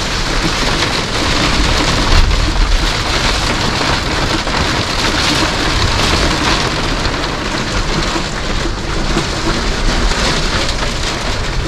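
Hail and rain pelting an RV's roof and windows, heard from inside the rig: a dense, steady clatter of countless small impacts with a low rumble underneath.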